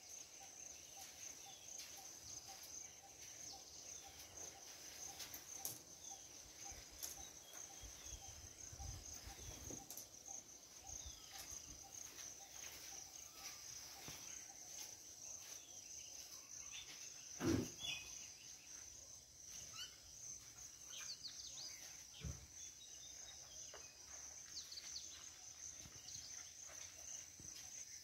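Faint, steady high-pitched chorus of insects with scattered short bird chirps. A single sharp thump about two-thirds of the way through is the loudest sound.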